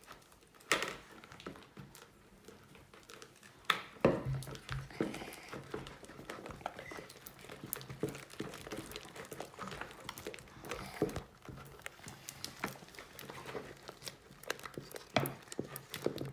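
Fluffy slime of glue and shaving cream being mixed as activator is worked in: irregular sticky squelches and crackles, with a few sharper snaps.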